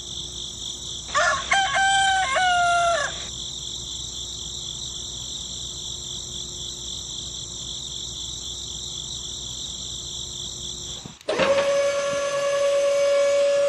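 A rooster crows once, about two seconds long, starting about a second in, over a steady high chirring of insects. About eleven seconds in the sound cuts abruptly to a loud steady hum with overtones.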